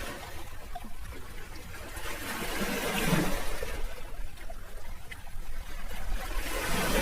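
Sea waves washing in, the surf swelling and fading in slow surges, one peaking about three seconds in and another building near the end.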